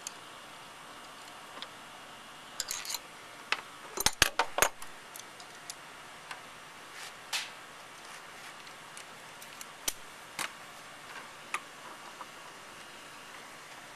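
Scattered clicks and clinks of metal hand tools, a socket wrench with extension and an adjustable wrench, being handled at the mower's carburetor mounting nuts. A quick cluster of sharp clicks comes about four seconds in, with single clicks now and then after it.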